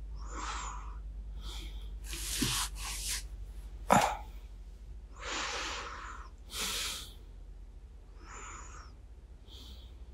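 Sleepy breaths and sighs close to a binaural microphone, with soft rustling, and one short sharp sound about four seconds in, the loudest moment.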